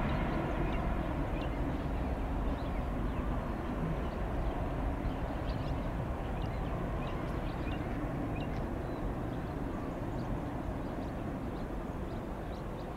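Boeing 737 MAX jet engines at climb power after takeoff: a steady low rumble that slowly fades as the airliner climbs away, with faint short bird chirps over it.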